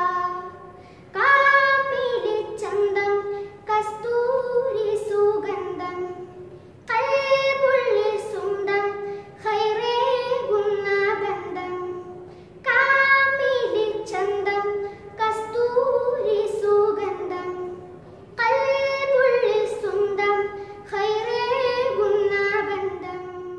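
A boy singing a Malayalam madh, a devotional song in praise of the Prophet, unaccompanied. He sings in long melodic phrases with short breaks for breath between them.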